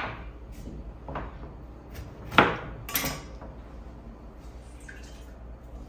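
A few separate clinks and knocks of kitchenware, glass jar and utensils being handled, the loudest about two and a half seconds in.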